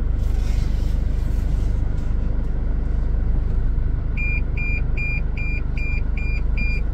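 Toyota Fortuner's engine running with a steady low rumble inside the cabin. About four seconds in, the rear cross traffic alert starts beeping, short high beeps a little over two a second, warning that a vehicle is crossing behind the reversing SUV.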